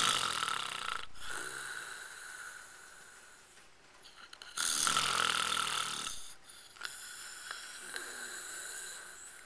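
A man snoring in his sleep: long, noisy snores a few seconds apart, the first two loud and a softer one near the end.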